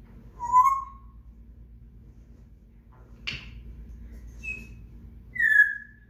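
African grey parrot whistling: a short whistle about half a second in that rises slightly, a brief harsh rasp about halfway, a short high chirp, then a second whistle near the end that falls in pitch.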